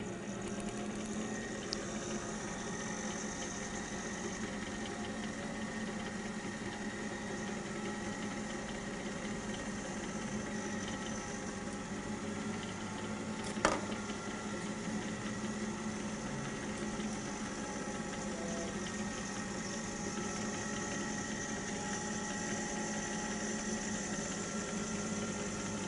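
Van de Graaff generator running steadily, its motor and belt making an even mechanical hum while it charges the dome. A single sharp click about fourteen seconds in.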